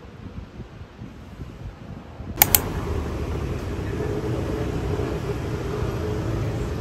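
A faint low hum, then two sharp clicks about two and a half seconds in. After them comes a louder, steady city street ambience with traffic running.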